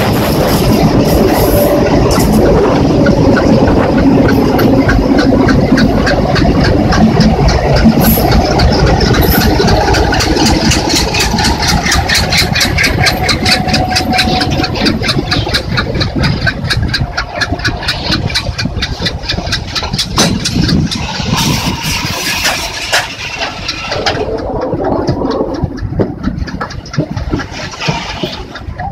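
Goods train hauled by twin WDG-3A diesel locomotives passing close. First the locomotives' engines run loud, then a fast, even clatter from the passing train fades gradually toward the end.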